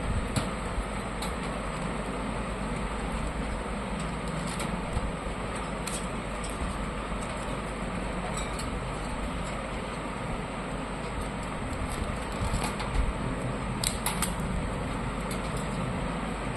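Steady background noise with a few faint clicks scattered through it, two of them close together near the end.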